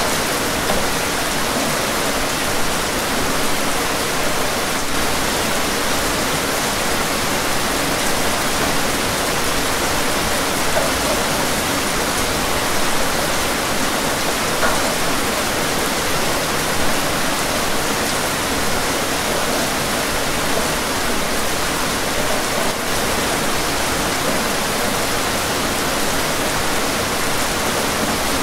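Steady rain falling, an even hiss that neither rises nor falls.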